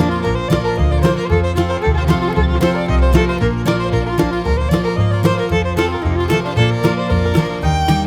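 Upbeat instrumental bluegrass-style background music with fiddle, banjo and guitar over a steady beat.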